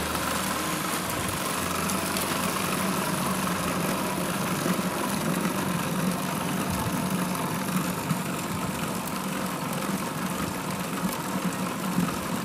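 Electric food processor running steadily, blending minced meat with egg and spices into a smooth paste.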